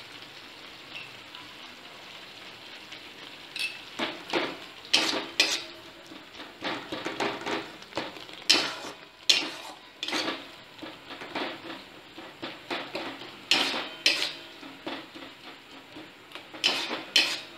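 Flat metal spatula scraping and knocking against a metal kadai as pineapple halwa with sugar and grated khoya is stirred over the flame, with a faint sizzle underneath. The first few seconds hold only the faint sizzle. The irregular scraping strokes begin about four seconds in.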